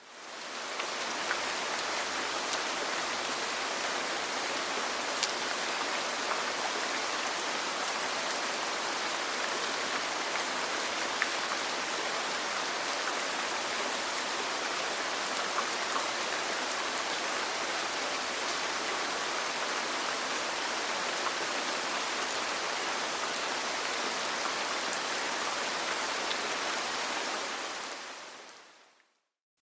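Steady rain falling on a roof, an even hiss dotted with a few faint ticks of drops. It fades in at the start and fades out near the end.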